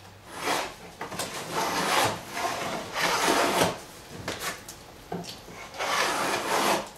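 Stanley No. 50 combination plane with a beading iron cutting a bead along the edge of a wooden board: about five short rasping strokes with brief pauses between them. The iron is new and this is a first test cut.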